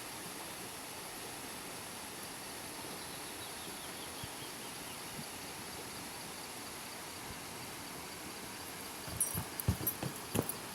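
Steady rush of rainwater running over small desert waterfalls. Near the end, a run of irregular sharp knocks and clicks comes in over it.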